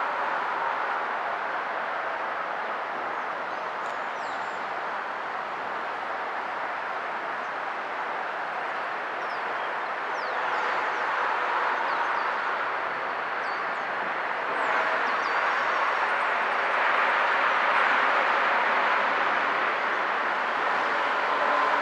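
A steady rushing noise from a covered hopper freight car being shoved slowly along a yard track during switching, mixed with traffic. It grows louder after about ten seconds as the car rolls closer.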